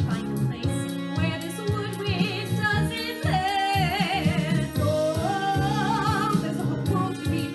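A woman singing with instrumental accompaniment. From about three seconds in she holds long notes with vibrato, and the line steps up to a higher held note about five seconds in.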